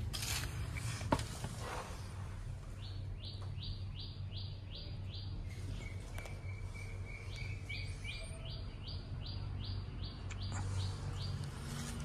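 A bird calling: a run of short, high, repeated notes at about four a second, a pause with a thin held note, then a second, longer run. Underneath is a low, steady background rumble, with a few brief knocks or rustles near the start.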